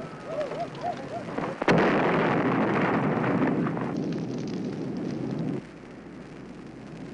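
A film sound effect of a car exploding: a sudden blast about a second and a half in, followed by a loud rumbling noise of the fire that lasts about four seconds and cuts off suddenly.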